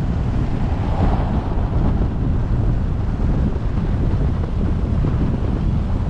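Steady low wind rumble buffeting the microphone of a moving car's forward-facing camera, mixed with road noise, with a slight swell about a second in.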